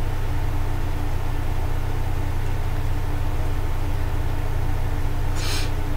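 Steady low mechanical hum with a faint steady tone above it; a brief hiss about five and a half seconds in.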